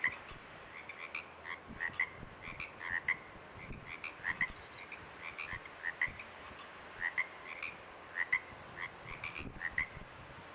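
A chorus of small calling animals: short chirps, often in close pairs, repeating irregularly a few times a second over a faint hiss.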